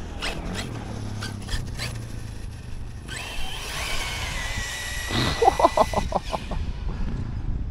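Electric RC car running: about three seconds in, a high motor whine with hiss starts, falling in pitch and then holding steady for about three seconds. A quick run of rattling pulses comes about five seconds in.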